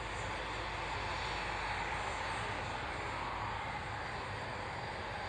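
Aircraft engine noise, a steady even rush.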